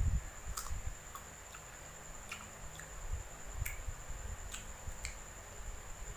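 Close-miked chewing of crunchy unripe green mango: scattered sharp crunching clicks at uneven intervals over low dull jaw thuds, with a faint steady high-pitched whine underneath.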